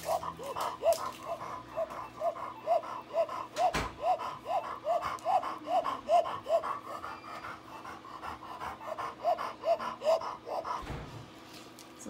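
Elderly Labrador retriever panting with a whistling note on each breath, about two to three a second, pausing briefly past the middle and then resuming. This is the stridor and labored breathing typical of laryngeal paralysis, which is suspected in this dog. A single brief click comes about four seconds in.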